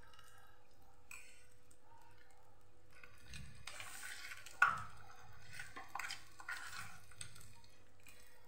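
Irregular light clatter of kitchen utensils against a pan and the stovetop, with one sharp clink about halfway through, over a faint steady hum.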